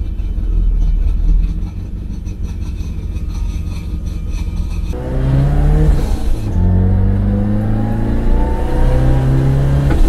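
Toyota AE86 Corolla's four-cylinder engine heard from inside the cabin: a steady low running for about five seconds, then revving up under acceleration. About six and a half seconds in the pitch drops as it shifts gear, then rises again.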